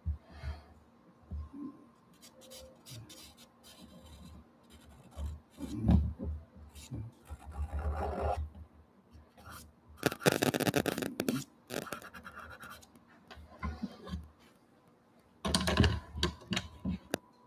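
Pastel scratching across gesso-coated watercolour paper in irregular strokes, with a few dull thumps among them.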